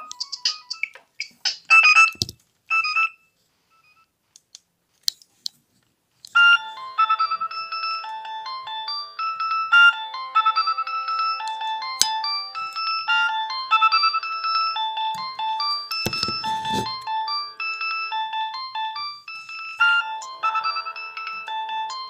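Nokia 2650 flip phone playing its built-in ringtones through its loudspeaker. One tune ends about two seconds in, and after a short gap with a few faint clicks a new tune of bright electronic notes, several at once, starts about six seconds in. There is a brief handling thump a little past the middle.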